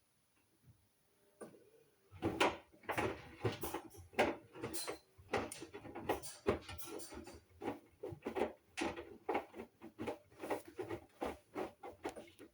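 Hoover washing machine drum starting to turn after a pause, with the wet laundry tumbling and sloshing in a fast, irregular run of soft knocks and clatters, in the opening stage of a Mixed 40 wash with Max Soil and Water Plus.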